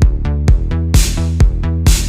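Electronic dance music with a steady kick-drum beat, about two beats a second, over a bass line, with cymbal swells about a second in and near the end.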